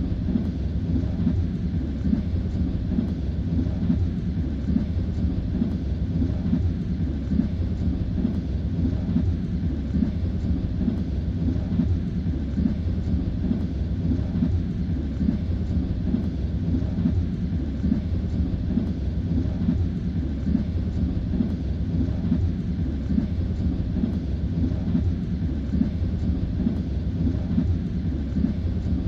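Passenger train running at speed, heard from inside the carriage: a steady low rumble of the wheels on the rails.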